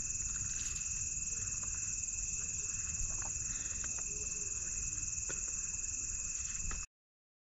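Crickets trilling steadily in a continuous high chorus, with a few faint clicks; the sound cuts off abruptly near the end.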